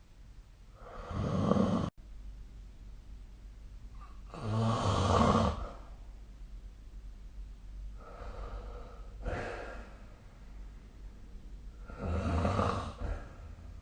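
A sleeping person snoring: four breaths about three to four seconds apart, three of them loud rasping snores and one softer, over a faint steady background hum. The first snore cuts off abruptly.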